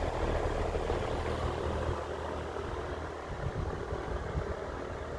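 Vintage Emerson Electric 20-inch box fan running on low speed, its blades giving a steady whoosh of moving air. A steady low hum drops away about two seconds in, leaving an uneven low rumble.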